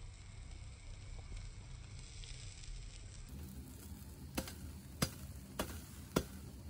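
Meat sizzling faintly in a wire grill basket over a coal-briquette (yeontan) fire. After a cut, four sharp clicks come about half a second apart as the wire grill basket is handled.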